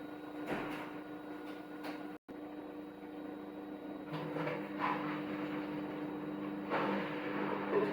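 Haier HW80-B14979 washing machine on its spin cycle: a steady, quiet motor hum with a few soft whooshing swells from the turning drum, and a brief cut in the sound a little after two seconds in. The machine is running smoothly, standing only on its adjustable feet with no raising stand-offs.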